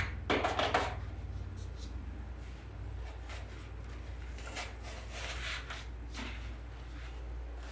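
Soft rustling and scraping as a foam pumpkin is pushed into dry moss in a woven wood basket, in short bursts about a second in and again between three and six seconds in. A steady low hum runs underneath.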